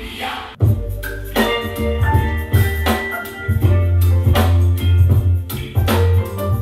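Instrumental electronic music with a heavy bass line and sustained keyboard chords, played through the boAt Aavante Bar 5500DA soundbar and its wired subwoofer for a sound-quality demo. A new track cuts in about half a second in.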